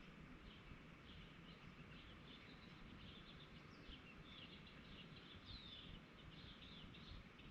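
Faint birdsong: many short, overlapping chirps from several birds, busiest in the middle, over a steady low background rumble.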